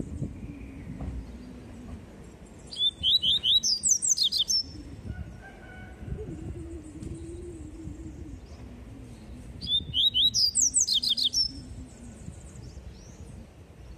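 Caged papa-capim seedeater singing its 'tui-tui' song: two loud phrases of rapid repeated sharp notes, about three seconds in and again about ten seconds in.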